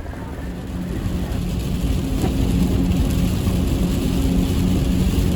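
Car driving on a wet road in pouring rain: a steady engine and road hum under the hiss of rain and tyre spray, which grows louder about a second in.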